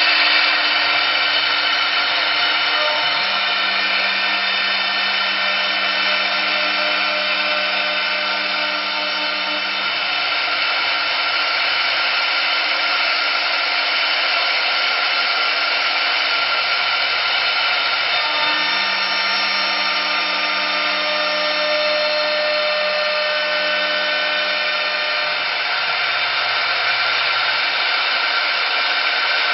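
CNC wood-turning lathe running, a steady whirring machine noise with a lower motor hum that steps between two pitches a few times.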